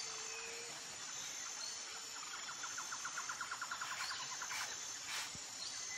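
Faint nature ambience: a steady high-pitched insect-like whine over a soft hiss, with a short rhythmic trill of about ten pulses a second in the middle and a few faint chirps.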